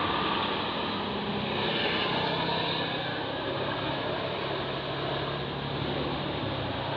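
Tour bus engine pulling up a climb as it passes, a steady low engine note over road and tyre noise.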